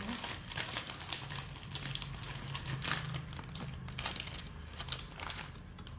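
Thin plastic packet crinkling as it is handled, an irregular run of crackles.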